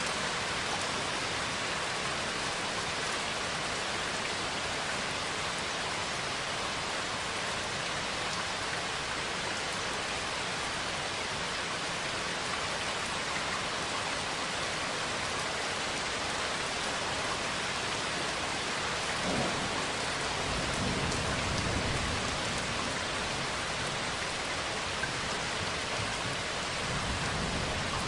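Steady heavy rain falling on a surface, an even hiss throughout. A low rumble of thunder swells in about two-thirds of the way through and comes back briefly near the end.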